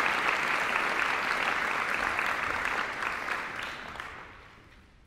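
Audience applauding, the clapping thinning and dying away about four seconds in.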